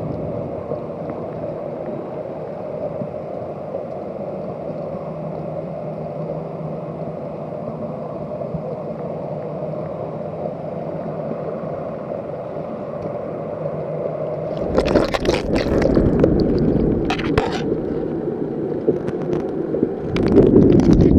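Steady, muffled underwater noise heard through a submerged camera's housing. About fifteen seconds in, loud rushing and splashing of water against the housing starts as the camera is pulled up toward the surface, loudest again near the end.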